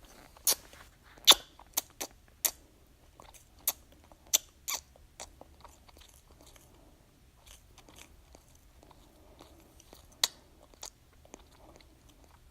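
Baby sucking on a pacifier: wet, irregular smacking clicks, several in quick succession in the first few seconds, then sparser with a couple more near the end.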